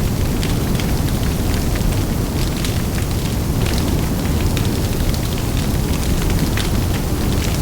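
Large bonfire burning: a steady low rumble of flames with frequent sharp crackles and pops scattered irregularly throughout.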